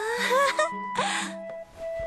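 Gentle background music of sustained tones. Over it, a voice makes a short breathy rising exclamation near the start and another brief one about a second in.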